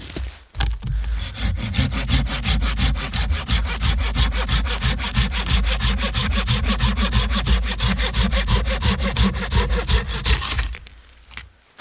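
Hand saw cutting through a dead, weathered log, in fast, even back-and-forth strokes that stop near the end.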